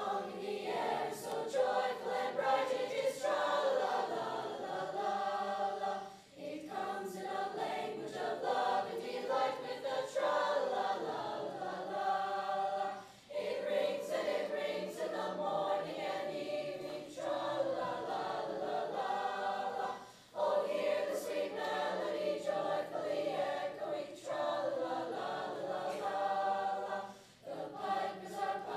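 Eighth-grade mixed choir of boys' and girls' voices singing a choral piece in sustained phrases, with short pauses between phrases every few seconds.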